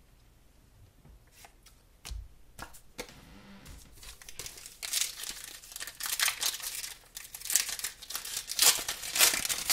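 A few light taps and a soft knock as cards are set down. Then, from about halfway in, the foil wrapper of a Pokémon TCG booster pack crinkles and is torn open, growing louder toward the end.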